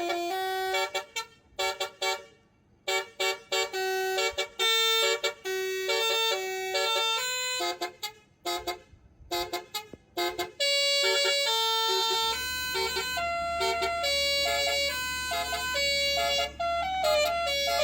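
Truck's multi-note musical horn playing a quick tune of short blasts at changing pitches, in phrases with brief pauses between them. A low engine rumble runs underneath from about twelve seconds in.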